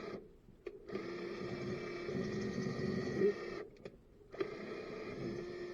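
Electric drill motor running in three bursts with two short stops, boring out a hole with a bit to fit a rivet nut.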